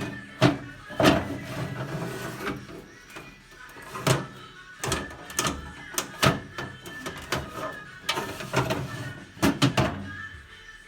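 A series of irregular knocks and clatter, about seven sharp ones spread through, from things being handled and set down, over faint background music.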